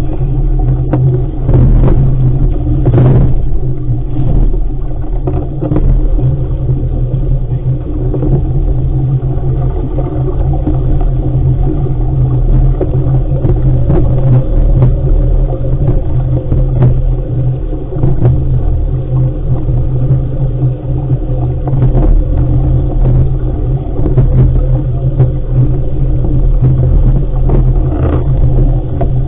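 Heavy wind rumble on the microphone aboard an RS500 sailing dinghy under way, with scattered short knocks or splashes.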